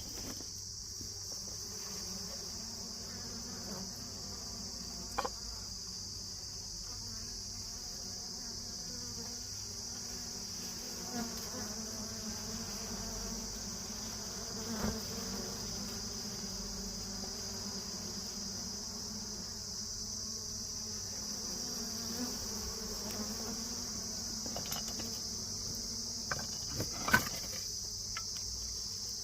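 Honey bees buzzing around their comb as it is cut out of the rock, a steady low hum, over a continuous high-pitched insect trill. A few sharp knocks, the loudest near the end.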